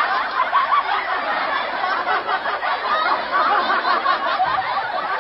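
Many people laughing together, a steady mass of overlapping laughter.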